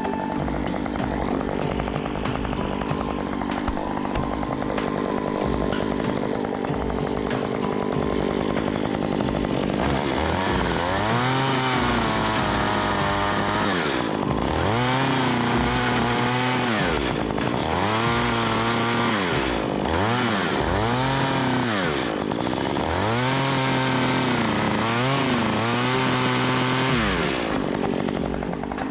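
Two-stroke engine of a STIHL MS 194 TC top-handle chainsaw, first running steadily. From about ten seconds in, it is revved up, held at high speed and let fall back again and again, about every two seconds.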